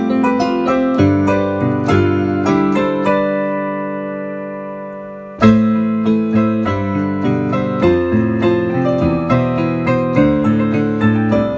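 Digital piano played by hand: a run of struck notes over a low accompaniment, then a chord held about three seconds in that rings and fades for about two seconds before the playing comes back in suddenly and loudly.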